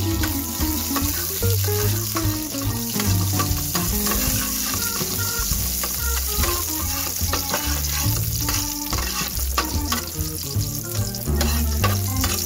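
Sliced garlic sizzling in hot oil in a frying pan, with a metal spatula scraping and clicking against the pan as it is stirred. Background music with a steady bass plays throughout.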